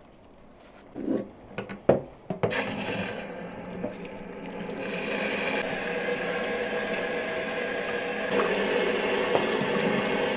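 A few knocks, then water running steadily, as from a tap, getting louder a few seconds in.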